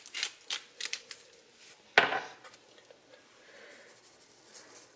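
Hand salt grinder grinding pink Himalayan salt in a rapid run of crunchy clicks, followed about two seconds in by a single sharp knock. Near the end comes a faint soft shaking of a spice shaker.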